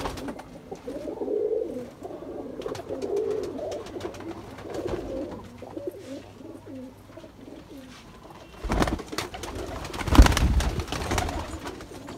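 Several domestic pigeons cooing continuously in a loft. A couple of loud bursts of rustling noise come near the end, the second the loudest sound.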